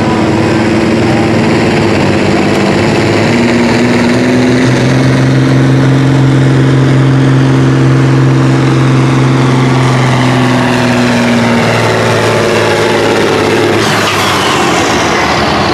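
Cabover semi truck's diesel engine running hard under full load while it drags a weight-transfer pulling sled, its pitch holding steady for several seconds. Near the end the pitch falls away as the pull finishes.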